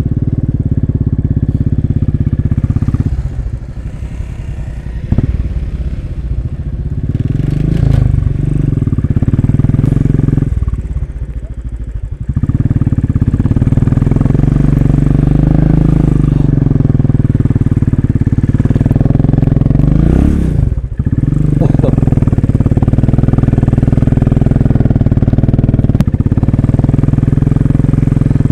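Royal Enfield Classic 500's single-cylinder engine running at low speed, heard from on the bike. The revs rise and fall a few times in the first twenty seconds, then hold steady.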